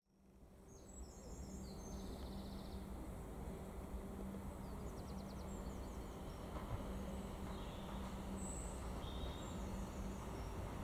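Small birds chirping and trilling over a steady low rumble with a faint hum, fading in during the first second.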